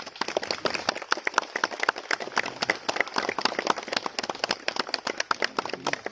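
Crowd applauding: many hands clapping in a dense, uneven patter.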